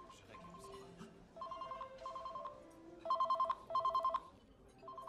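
Mobile phone ringtone ringing from inside a handbag: a trilling ring in pairs of short bursts, muffled at first and much louder from about three seconds in.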